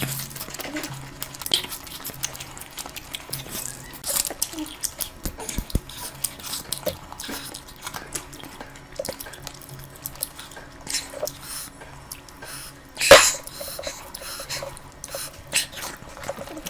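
Close-miked eating sounds: wet chewing, mouth clicks and lip smacks from someone eating curry, with one much louder sudden burst about 13 seconds in.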